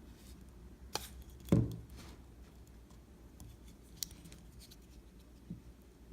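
Hands handling a slingshot frame while wrapping tie line around it over a paper card: a few light clicks and rustles, with one louder dull thump about a second and a half in.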